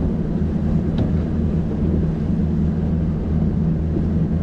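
Bass boat's outboard motor running with a steady low drone.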